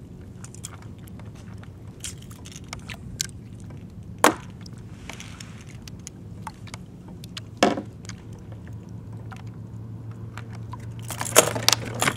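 Handling noise of fishing tackle in a kayak: scattered small clicks and rattles, with two louder knocks about four and seven and a half seconds in and a quick run of clicks near the end, over a low steady hum.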